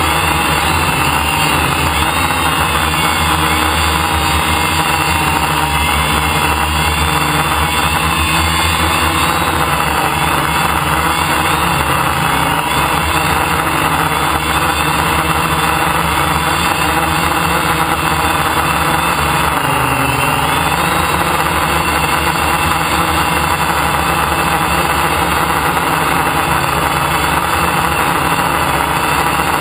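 Brushless electric motors and propellers of a DJI F550 hexacopter in flight, heard from a camera mounted on its frame: a loud, steady buzzing whine. The pitch wavers throughout as the motors adjust and dips briefly about twenty seconds in.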